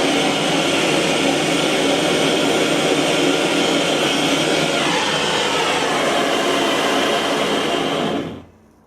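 Gas torch burning steadily as it heats a joint for silver soldering or brazing, then cut off about eight seconds in.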